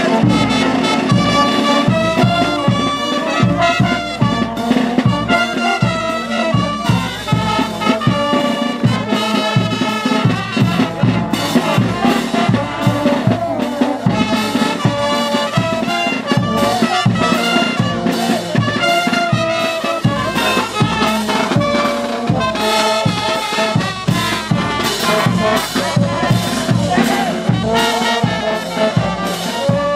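Brass band playing a lively tune, trumpets and trombones over a steady drum beat.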